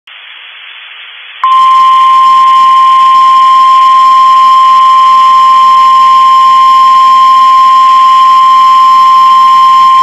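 NOAA Weather Radio's warning alarm tone: one loud, steady tone near 1 kHz that comes in sharply about a second and a half in, after faint radio hiss, and holds without a break. It signals that a warning message follows, here a severe thunderstorm warning.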